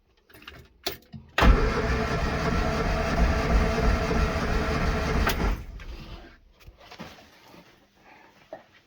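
Morris Minor Traveller's four-cylinder engine cranked over on the starter motor with all spark plugs out, for a compression test. After a click about a second in, the cranking starts suddenly, runs evenly for about four seconds, then stops and winds down.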